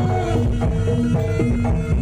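Jaranan dance music: drums and gamelan-style struck percussion playing over steady held notes.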